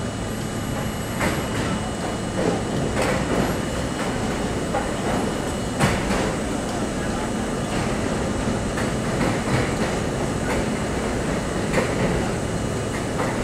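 Subway train running through a tunnel, heard from inside the car: a steady rumble with sharp clacks every couple of seconds as the wheels pass over rail joints.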